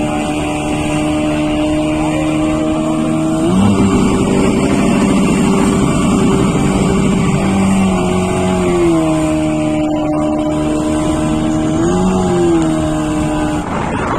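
A fishing boat's motor running steadily under way, with wind and water rushing past. Its note shifts a few times: it gets rougher about a third of the way in, then dips and briefly rises again near the end.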